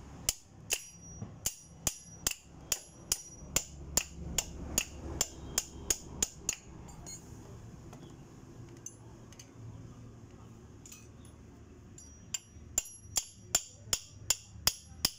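Repeated sharp metal-on-metal hammer blows, about two or three a second, knocking a stuck gear shaft out of a Hero motorcycle engine's crankcase. The blows stop for about six seconds midway, then start again.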